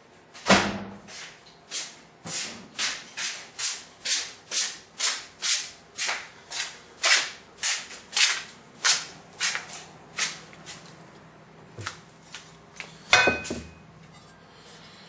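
A run of about twenty sharp knocks, roughly two a second, that stops about ten seconds in, followed by a few lighter ticks and one last loud knock near the end.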